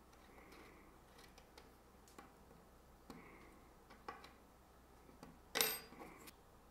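Faint small metallic clicks and scrapes as the thin hardened-steel blades of a handmade radius gauge slide against each other and a hex key turns its small pivot screws. The loudest is a single sharp metal click a little past five seconds in.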